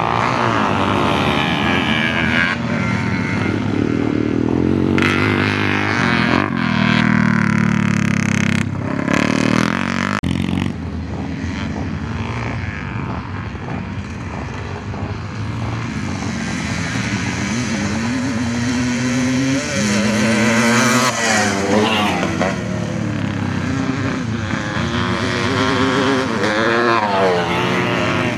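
Several classic motocross bikes racing past, their engines revving up and down through the gears, the pitch rising and falling again and again. It eases off a little around ten seconds in, then swells as more bikes come through.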